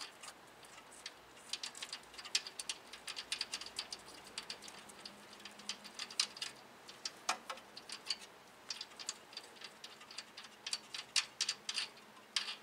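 Hand ratchet clicking in quick runs with short pauses as the 17 mm bolts holding a front wheel hub assembly to the steering knuckle are turned out; the bolts are turning easily.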